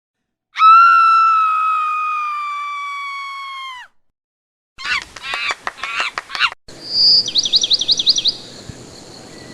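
Cartoon bird sound effects: a long whistle-like note that sags slightly in pitch, then a few choppy squawking calls, then a fast trill of chirps over a steady outdoor hiss.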